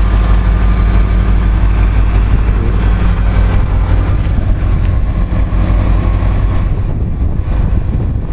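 1981 Toyota Hilux pickup's four-cylinder engine idling steadily.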